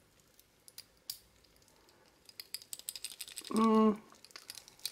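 Small sharp clicks and ticks of a steel watch bracelet and its milled clasp being handled, a few scattered at first and then a busy run from about two seconds in. A short hummed "mm" from a man's voice comes a little after three and a half seconds in.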